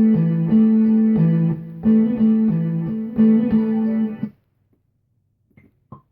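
A sampled guitar phrase played back as a short repeating loop from a Maschine Studio, cutting off about four seconds in; a few very short clipped sample hits follow near the end.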